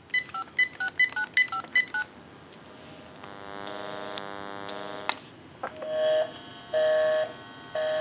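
A GE 6.0 cordless telephone dialing a number in touch-tones: a quick run of about six beeps in the first two seconds. A steady electrical hum on the line follows, ending in a click, and then a busy signal, on-off beeps about once a second, starts a little past halfway. The busy signal comes because the phone has dialed its own line.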